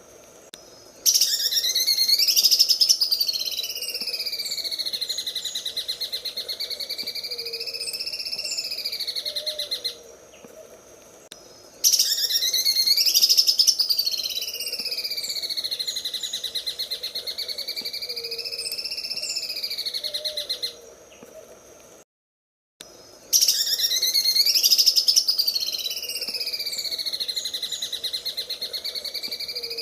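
Greater green leafbird (cucak ijo) singing its fast, rattling 'sewing machine' song: a sharp opening, then a long pulsed trill that dips and rises in pitch. The same phrase is repeated three times as a loop, each phrase about nine seconds long with short gaps between.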